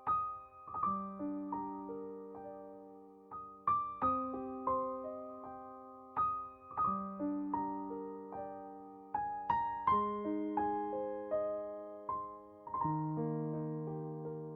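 Soft background piano music: gentle notes struck one after another and left to ring.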